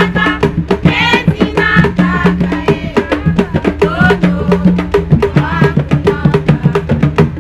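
Tufo music from Mozambique: women's voices singing over a fast, even beat of tufo frame drums.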